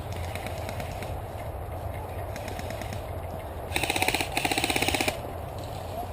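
Airsoft gun firing two short full-auto bursts of rapid, evenly spaced shots, a moment apart, about four seconds in, over a steady wind rumble.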